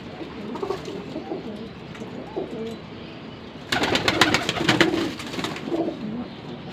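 Domestic pigeons cooing softly. About four seconds in, a loud rustling, flapping clatter starts as a pigeon is handled.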